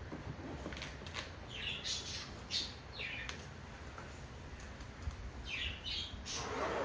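Birds chirping and squawking in short repeated calls, over soft zipper and handling sounds from a fabric instrument case being unzipped.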